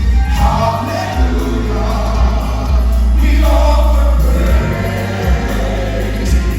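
Gospel group singing in harmony with a live band, with heavy held bass notes underneath that change every second or two.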